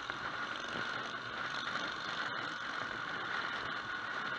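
Steady running noise of a motorcycle on the move: engine, road and wind noise.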